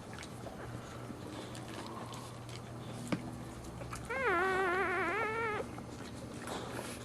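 A dog's single high, wavering whine lasting about a second and a half, starting about four seconds in.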